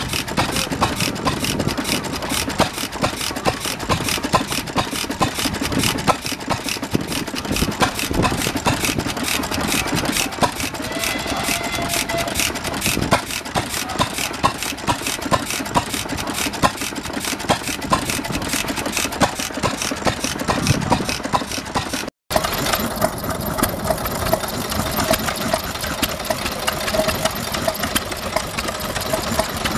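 Vintage stationary engines running, with rapid, evenly spaced knocks. The sound cuts off briefly about 22 seconds in, and another engine carries on running with a steady tone over its beat.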